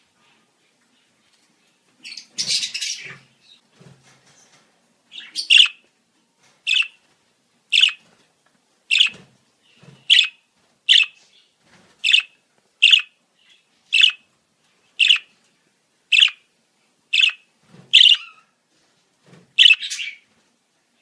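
Budgerigars calling. A short, harsh squawk comes about two seconds in, followed by a steady run of about fourteen short, sharp chirps, roughly one a second.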